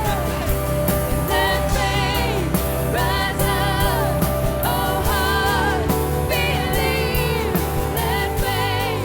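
Contemporary Christian worship song: a sung melody over a band with steady bass and a regular drum beat.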